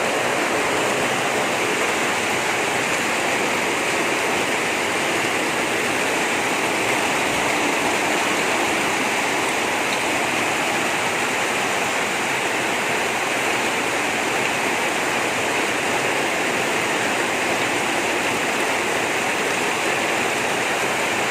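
Heavy rain pouring down steadily, a loud, dense, unbroken hiss.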